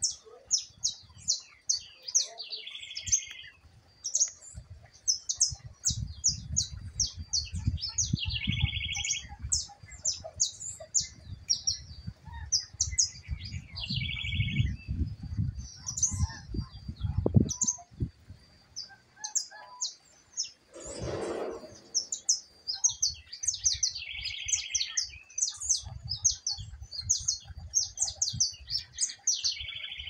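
Small songbirds chirping continuously in quick high notes, with a buzzy trilled phrase repeating every five or six seconds. A low rumble of wind on the microphone runs under much of it, and a brief rushing sound comes about two-thirds of the way in.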